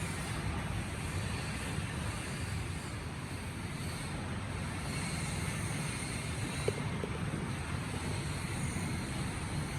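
Steady low rumble and hiss of background noise, with a short faint tone about two-thirds of the way through.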